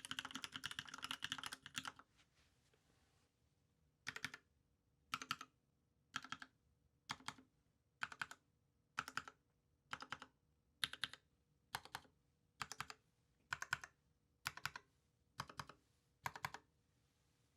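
Keystrokes on a TGR Alice custom mechanical keyboard with lubed Cream switches, a brass plate and GMK keycaps. Fast, continuous typing stops about two seconds in. From about four seconds in, single keys are pressed one at a time, about once a second, around fourteen strokes.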